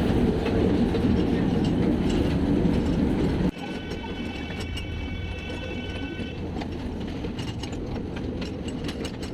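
Ride-on toy train running on its track, with a steady rumble and clatter. About three and a half seconds in the sound drops abruptly, and a steady high-pitched tone sounds for about two and a half seconds over quieter running with light clicks.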